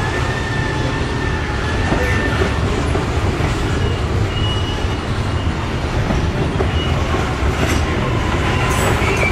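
Loaded coal hopper cars of a freight train rolling past on curved track: a steady rumble of steel wheels on the rails, with faint high wheel squeals coming and going.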